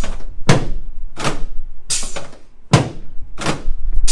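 A steady run of evenly spaced thuds, about one every three quarters of a second.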